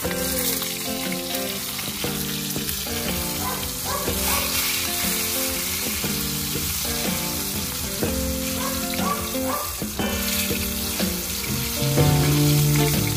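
Eggplant slices sizzling as they fry in hot oil in a wok, a steady sizzle.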